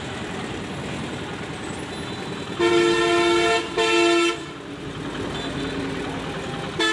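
A vehicle horn honks twice about two and a half seconds in, a long blast then a shorter one, over steady street traffic noise; another honk starts right at the end.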